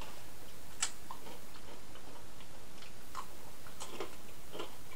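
Scattered faint clicks and crackles of fried banana chips being handled and bitten into.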